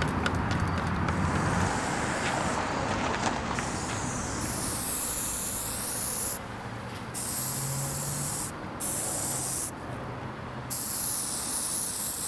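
Aerosol spray-paint can hissing in four bursts of about one to two seconds each, with short breaks between them, as a line is sprayed onto a wall. The hiss starts about a third of the way in.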